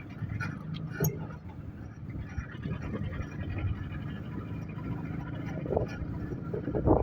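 Pickup truck running and moving along a rough track, a steady low engine rumble with a few knocks and rattles in the first second or so.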